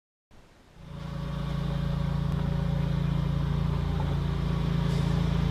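Tow vehicle's engine running steadily while backing a boat trailer down a ramp, fading in during the first second.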